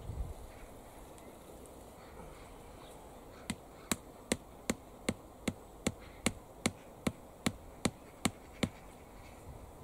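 A hammer tapping a wooden tomato stake into the soil: about fourteen sharp, even strikes, roughly two and a half a second, starting a few seconds in.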